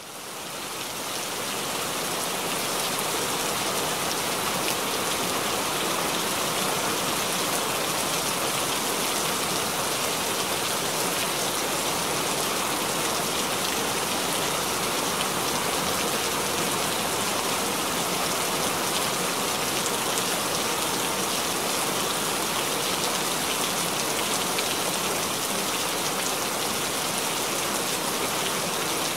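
Steady rainfall, a dense even hiss of raindrops, fading in over the first second or two and then holding constant.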